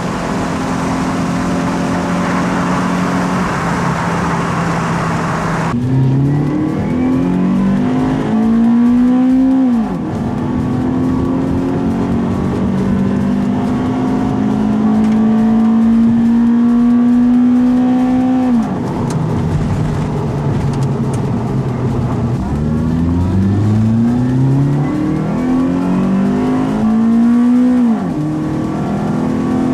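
Toyota Celica GT-S's 2ZZ-GE four-cylinder engine, breathing through an Injen short ram intake and TRD exhaust, pulling under acceleration. Its pitch climbs and then drops sharply three times as it shifts up through the gears. A rushing noise covers the first several seconds and cuts off suddenly.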